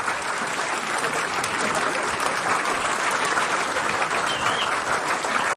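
Audience applauding, a dense clapping that holds steady, with a brief high call about four and a half seconds in.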